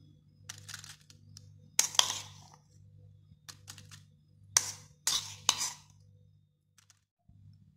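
Metal spoon scraping and knocking against the bowls while chopped tomato, onion and chilli are spooned onto broken potato chips: a handful of sharp clinks and scrapes, the loudest about two seconds in and again around five seconds in, over a low steady hum.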